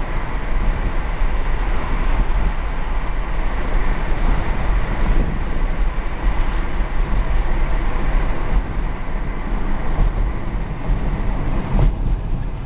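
Steady road and wind noise inside a moving car, with a heavy low rumble.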